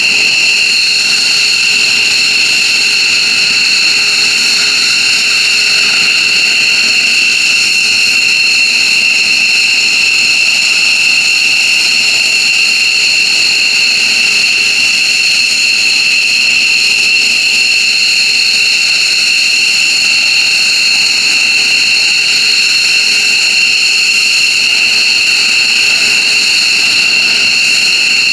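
Twin F100 turbofan engines of an F-15J Eagle fighter running steadily after start-up: a loud, steady whine of several high tones over a rushing hiss, holding the same pitch throughout.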